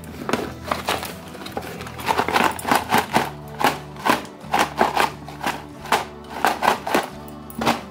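Cardboard-and-plastic chocolate gift boxes being handled: quick irregular clicks, taps and rustles of the packaging as the boxes are picked up, knocked against each other and shifted in the carton.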